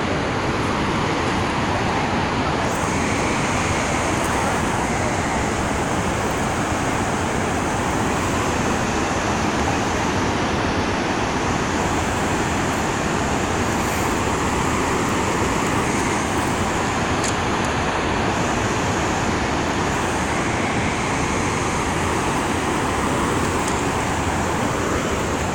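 Water rushing out through open dam flood gates in a flood: a loud, steady, unbroken rush.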